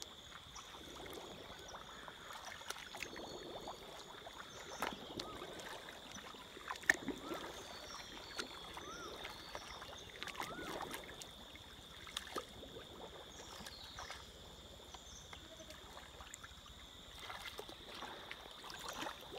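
Faint water sloshing and trickling with scattered small splashes and clicks as a person wades and gropes by hand through a shallow flooded rice paddy for snails, with a steady faint high tone underneath.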